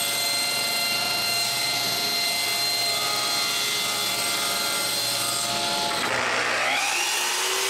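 King table saw running steadily as a panel is ripped to width. About six seconds in the sound changes to a power tool's motor spinning up, its whine rising and then holding steady.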